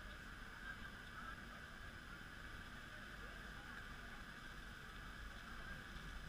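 Faint, steady outdoor background noise with a low rumble and no distinct event.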